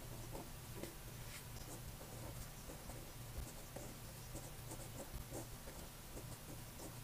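Fineliner pen writing on grid paper: short, irregular scratches and light ticks of the felt tip as each letter is drawn, faint and close.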